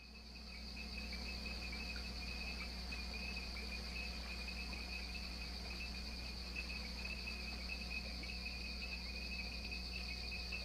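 Steady night insect chorus with a low steady hum underneath, fading in during the first second.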